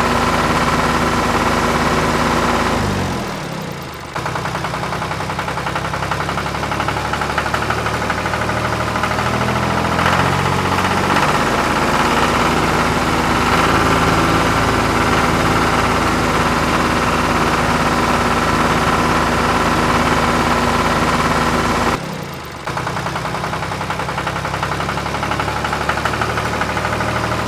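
Tractor engine running steadily at idle, broken off briefly about three seconds in and again a few seconds before the end.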